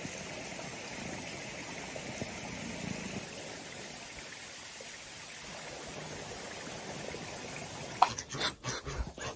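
Steady rush of running water, like a small stream. About eight seconds in it gives way to a short sharp call and a quick run of clicks and rustles.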